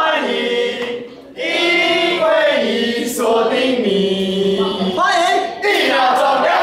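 A group of young people singing a song together in chorus, with held notes and a brief break about a second in.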